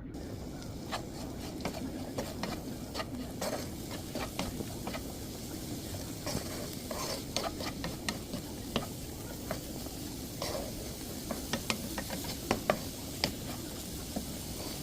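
Paneer and vegetables sizzling as they stir-fry in a pan, with frequent sharp clicks and scrapes of a utensil stirring against the pan, a few louder knocks near the end.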